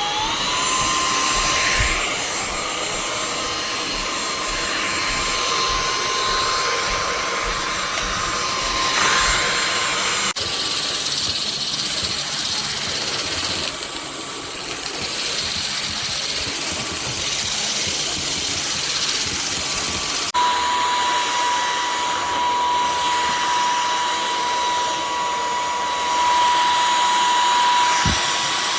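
Infaebo cordless stick vacuum's motor spinning up and then running steadily: a high whine over a rush of air. The sound breaks off abruptly twice, and in the last part the whine is slightly lower in pitch.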